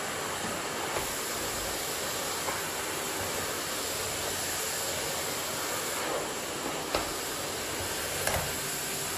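Miele vacuum cleaner running steadily with an even hiss of sucked air, with a few light knocks along the way, the sharpest about seven seconds in.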